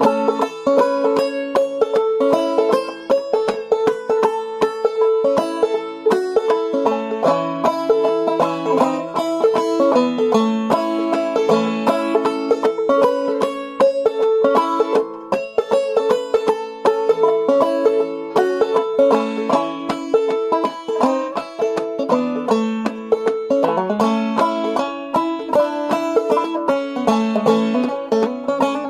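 Five-string banjo played clawhammer style in open G tuning, capoed at the second fret to play in A: a steady, driving run of plucked melody notes over a recurring high drone note, playing a fiddle tune.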